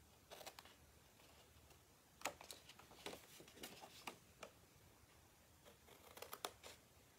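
Small scissors snipping tiny angled cuts in cardstock: faint, short snips and clicks in small clusters, with light rustling of the card as it is turned between cuts.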